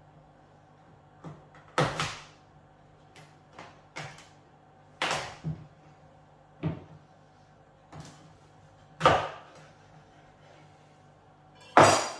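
Kitchen knife forced through a small, hard whole pumpkin on a plastic cutting board: about six sharp knocks and cracks a second or more apart, the loudest about two seconds in, about nine seconds in and near the end, as the blade bites and the pumpkin splits.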